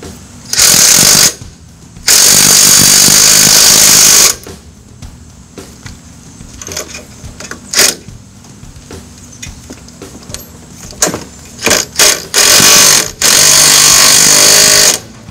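Cordless impact wrench hammering in bursts as it runs down the sway bar end link nuts: a short burst, then one of about two seconds, then a few brief ones and a longer burst near the end, with small handling clicks between.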